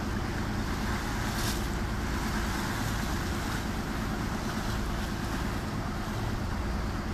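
Tour boat's engine running steadily under way, a constant low hum, with wind and water rushing past.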